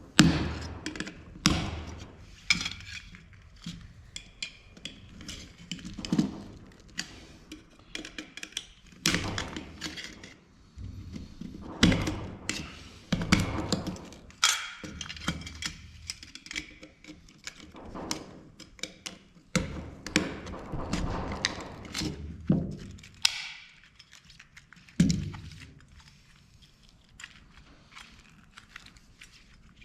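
Irregular knocks, clunks and scraping of camera parts being handled and pried at during disassembly of a dome security camera. The loudest knock comes right at the start, and the handling noise thins out near the end.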